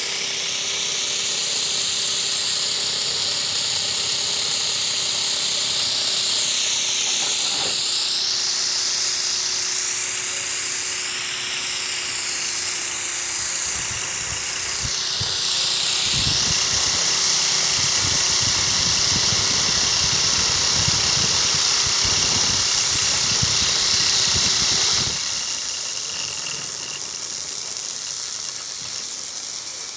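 Small steam turbine on a Mamod boiler spinning on live steam: a steady hiss of escaping steam with a high whine that rises and falls in pitch and a steady hum. About 25 seconds in, the hum and the whine stop and only the steam hiss remains.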